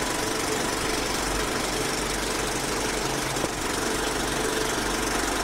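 Film projector sound effect: a steady mechanical whir with a rapid clatter and a low rumble underneath.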